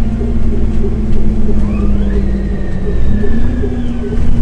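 Solaris Urbino 15 city bus running, its engine a steady low hum, with a whine that rises in pitch about a second and a half in, holds, and falls away near the end as the bus accelerates.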